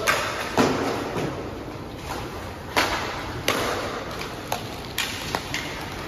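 A string of irregular sharp knocks and thuds, about a dozen, the loudest near the start and about a second and three seconds in, over a steady background din.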